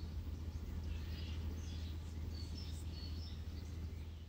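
Outdoor ambience: small birds chirping in short scattered calls over a steady low rumble.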